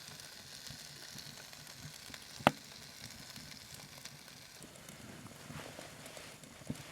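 Faint steady sizzling hiss, with one sharp click about two and a half seconds in and a few soft knocks near the end.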